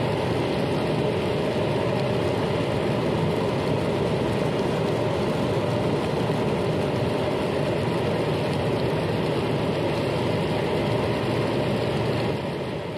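Steady, unbroken engine noise, easing off slightly near the end.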